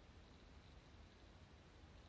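Near silence, with only a faint, steady low rumble and hiss.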